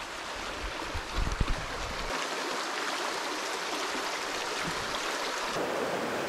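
Shallow creek running over stones, a steady rush of water, with a few low thumps about a second in.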